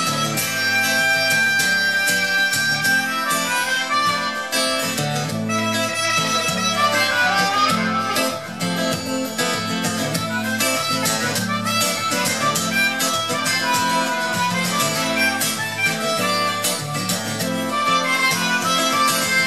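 Harmonica solo over strummed acoustic guitar. The harmonica is played cupped in the hands together with a hand-held microphone, so it comes through amplified.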